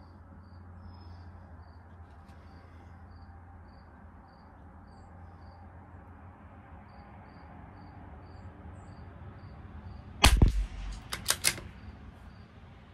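A bolt-action .22 LR rifle fires a single shot about ten seconds in, followed at once by three or four sharp clicks as the bolt is worked to chamber the next round. Crickets chirp faintly and evenly throughout.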